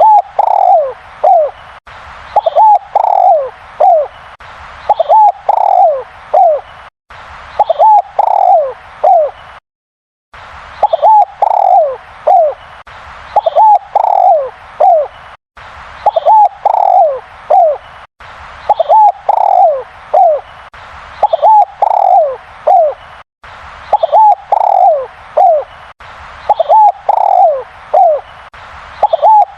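Derkuku (spotted dove) cooing loudly, over and over. Each phrase is a quick run of short falling coos, repeated about every two seconds.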